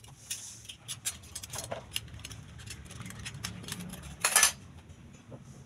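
Laundry being hung on a clothesline: scattered light clicks and clinks from hangers and pegs, with one short, louder swish about four seconds in as a garment is handled.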